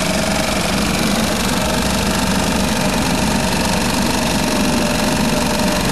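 Tohatsu MFS3.5A 3.5 hp single-cylinder four-stroke outboard motor running steadily in a test barrel of water, its propeller churning the water.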